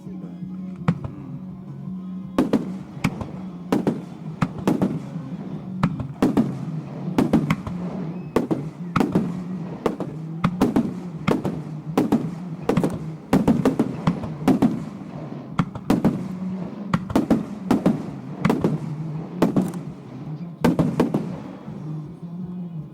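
Aerial fireworks shells bursting in quick succession, about one or two sharp bangs a second with echoing tails, stopping about a second before the end. Music plays underneath throughout.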